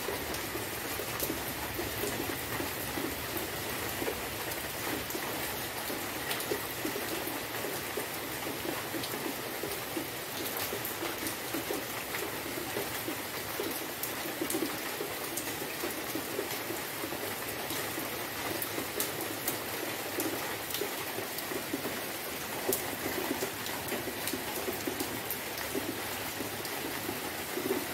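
Rain falling steadily, with many separate drops ticking and splashing into standing water.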